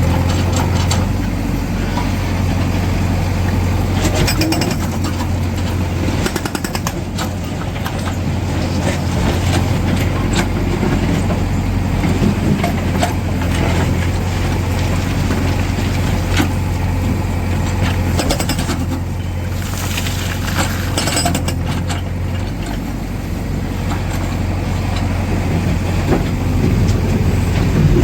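Tata Hitachi Shinrai backhoe loader's diesel engine running steadily under load, with intermittent clusters of hard knocking from its hydraulic rock breaker hammering stone.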